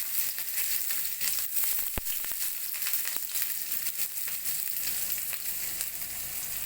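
Chopped onions frying in hot oil with cumin seeds in a kadhai, a steady sizzle with small crackles and one sharp click about two seconds in.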